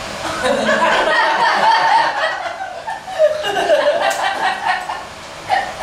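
A small audience laughing and chuckling, swelling just after the start and dying down near the end.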